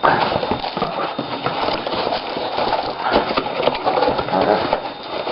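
Cardboard box and packaging being worked open by hand: busy, irregular rustling and crinkling with scattered knocks.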